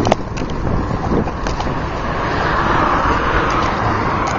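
Steady rumble and hiss of a car moving slowly in traffic, heard from inside the cabin, with a few short clicks.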